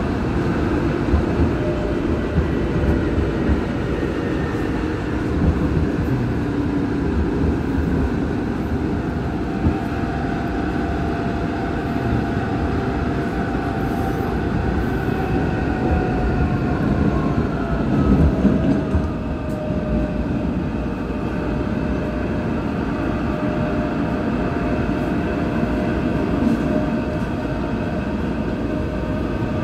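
Incheon Metro Line 1 train running through a tunnel, heard from inside the car: a steady rumble of wheels on rail, with the whine of the Alstom IGBT traction drive. The whine falls slowly in pitch between about ten and twenty seconds in, as the train slows.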